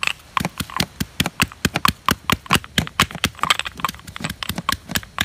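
Garlic being pounded in a granite mortar with a stone pestle: a quick, steady run of sharp knocks, about four to five strikes a second.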